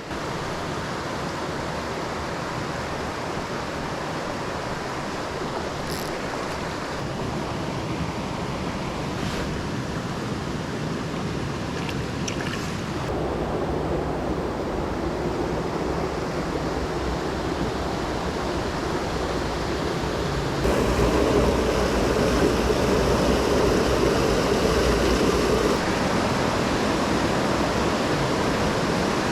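Rushing water of a mountain stream, a steady noise that steps up louder about halfway through and again about two-thirds of the way in.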